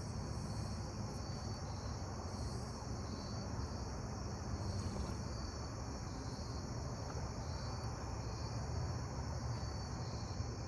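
Evening chorus of crickets and katydids: a steady high-pitched chirring with a repeating pulse in it, over a steady low rumble.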